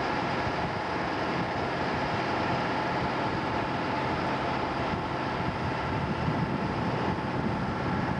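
Steady drone of the boat's twin V-16 two-stroke Detroit Diesel engines running under way, with an even rushing noise over it.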